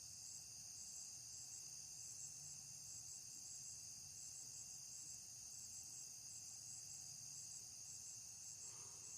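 Faint, steady high-pitched insect chorus with a fast, even pulsing in its highest part.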